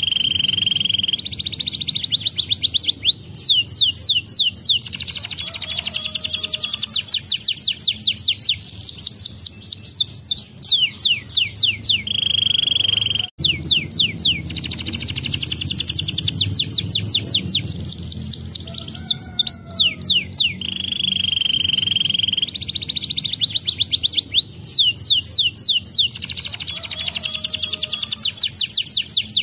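Domestic canary singing a continuous song of fast trills and held whistled notes. A brief gap comes about 13 seconds in, and the same song sequence then starts over.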